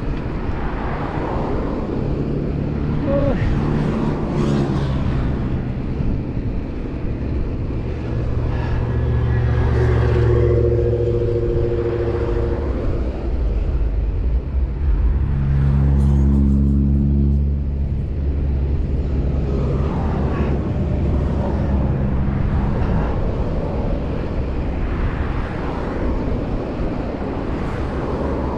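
Motor vehicle engines and road noise, with wind buffeting the microphone. An engine drone rises out of the steady rumble about eight seconds in and again at around fifteen seconds, each time lasting a few seconds.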